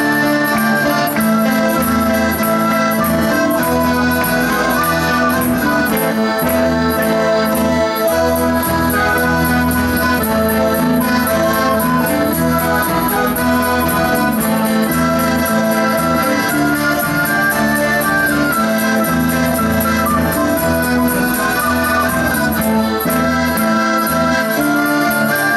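Live band music led by an accordion, playing steadily without a break.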